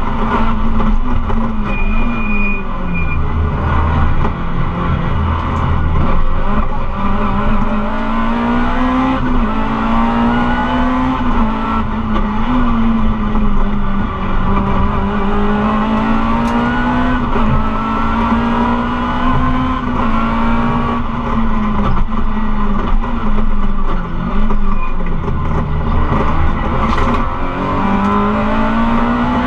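Rally car engine heard from inside the cabin, driven hard on a stage, its revs climbing and falling again and again through the gears.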